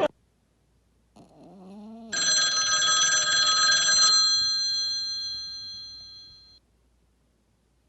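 About a second in, a rising gliding tone, then a bright bell-like chime that rings out with several steady tones, fades over about four seconds and cuts off abruptly.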